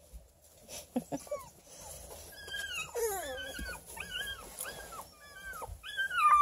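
A six-week-old beagle puppy whining and yelping: a string of short, high-pitched, falling whines that starts about two seconds in.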